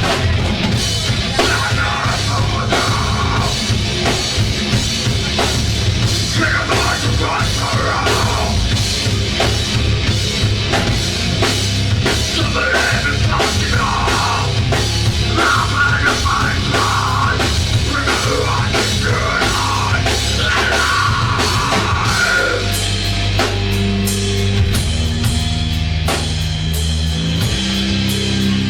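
A rock band playing live and loud: a drum kit drives a steady beat under electric guitars, with a higher melodic part coming back again and again until it drops out a few seconds before the end.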